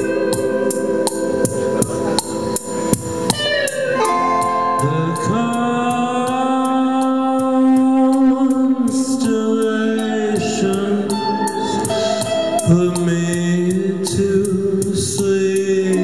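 A live rock band playing a slow song: a steady drum beat under electric guitar and keyboard, with a man singing into the microphone.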